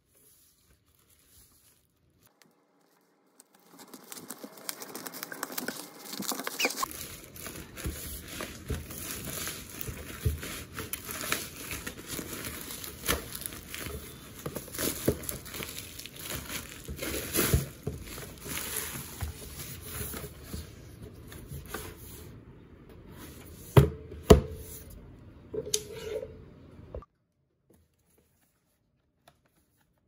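Food sizzling and crackling in a hot frying pan. It starts softly about three and a half seconds in and grows to a dense crackle a few seconds later, with two sharp knocks near the end before it cuts off suddenly.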